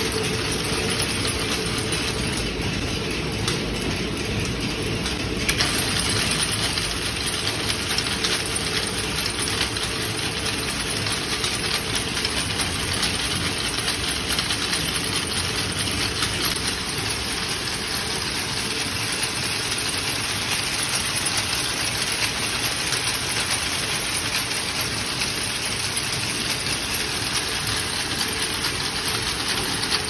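Wire braiding machines running with a steady, dense mechanical clatter of circling bobbin carriers and gears. The upper clatter grows stronger about five and a half seconds in.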